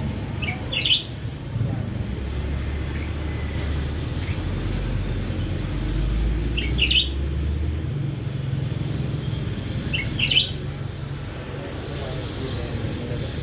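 A young caged hỏa tiễn bird gives three short, high chirps several seconds apart, over a steady low rumble.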